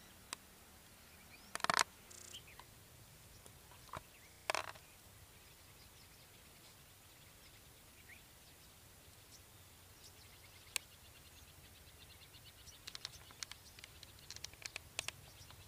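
Birds calling faintly outdoors, broken by a few sharp clicks or knocks. The loudest come about two and four and a half seconds in. Near the end a quick run of short high chirps builds up.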